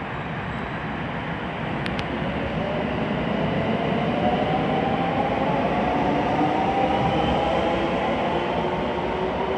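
An IR Ishikawa Railway 521-series electric train pulling out and accelerating away. The traction motors whine with a pitch that climbs steadily over a continuous rumble of wheels on rail, and the sound grows louder as the train gathers speed.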